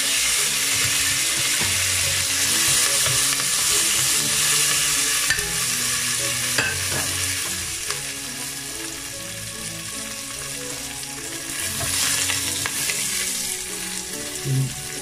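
Mustard seeds, cumin, curry leaves and dried red chillies sizzling in hot oil in a pot, the spice tempering for a curry. The sizzle is strongest at first, eases in the middle, and picks up again a few seconds before the end.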